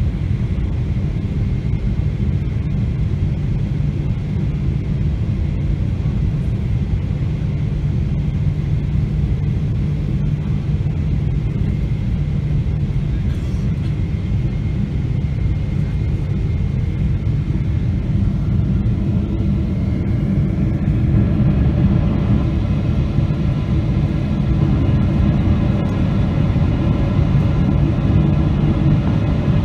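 Boeing 777-300ER cabin noise on final approach: a steady deep rumble of airflow and its GE90 engines. About twenty seconds in, a whine rising in pitch comes in and the noise grows a little louder.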